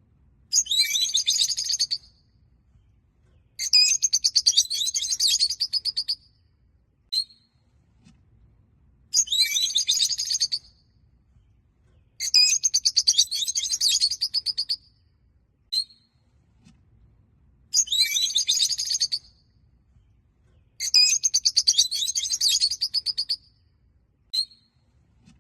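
Rosy-faced (peach-faced) lovebirds chirping. Bursts of rapid, high chirps, each lasting two seconds or so, alternate with single short chirps and brief pauses, in a pattern that repeats about every eight and a half seconds.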